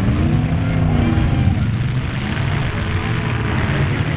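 Demolition derby car engines running and revving, their pitch rising and falling, over a dense, steady low rumble.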